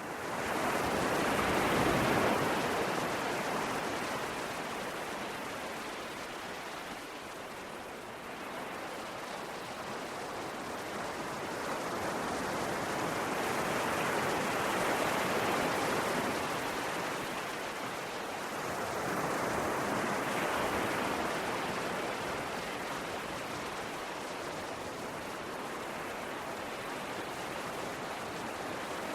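Ocean waves washing in, a steady hiss of surf that swells and eases in slow surges, building a few seconds in, again around the middle, and once more about two-thirds through.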